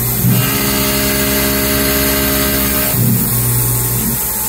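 CNC milling machine cutting an aluminium part with an end mill: the spindle runs steadily under the hiss of the coolant mist nozzles. About a third of a second in, a steady hum of several pitches comes in, and it drops out again about three seconds in.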